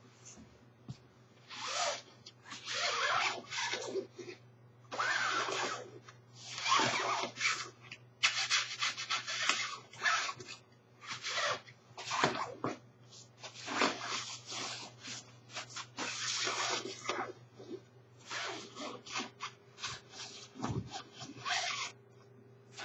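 Nylon shell of a padded winter parka rustling and scraping as it is rubbed, in repeated bursts of a second or two, with a run of quick short strokes about a third of the way through.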